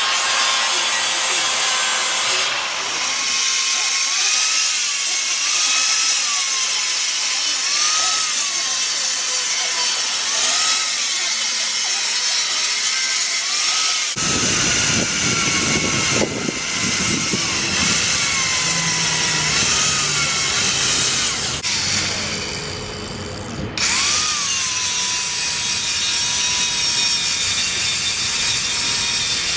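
Angle grinder grinding down welds on a steel square-tube frame, smoothing it for paint. The motor's pitch dips and recovers about once a second as the disc is pressed into the metal and eased off, with a brief let-up near the end.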